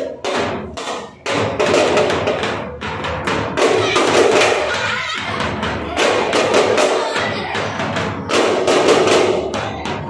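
Several thappu frame drums, the Tamil folk drum of thappattam, beaten with sticks in a driving rhythm, with a short break about a second in.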